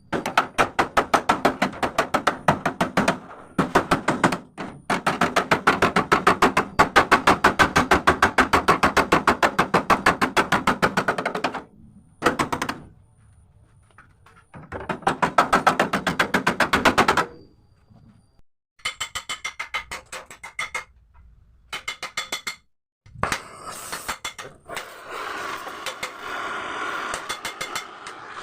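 Rapid hammering on the sheet-metal body of a Mitsubishi L300, in fast runs of ringing strikes broken by short pauses, as the sagging lower pillar is beaten back into shape. In the last third the strikes come sparser, with a rougher metallic rasp between them.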